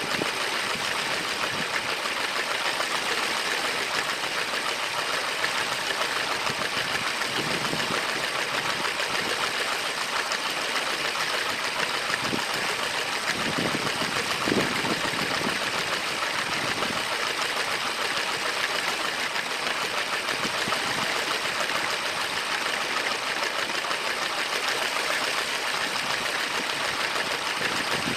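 A motorized LEGO train running along plastic track: a steady fast rattle and buzz of its small electric motor, gears and wheels, holding an even level throughout.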